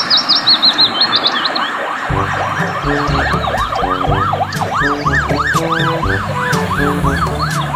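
Ambulance siren sounding as it passes in traffic. It gives a fast high warble at first, then a yelp that rises and falls about three times a second.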